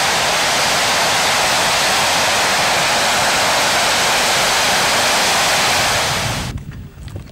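Rolls-Royce Avon turbojet of a BAC Lightning F.6 running at a static ground run, a loud, steady rush of jet noise; only one of the two engines is running and there is no afterburner. It cuts off suddenly near the end, leaving a quieter low rumble.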